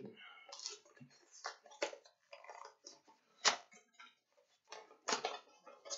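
Yu-Gi-Oh card packaging being handled and opened by hand: irregular crinkling and crackling of wrapper and packaging, with sharper snaps about three and a half seconds and five seconds in.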